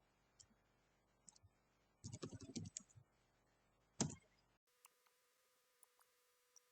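Computer keyboard typing: a quick run of keystrokes about two seconds in, then one harder key press, the Enter key, about four seconds in, with a few light clicks around them. A faint steady tone follows.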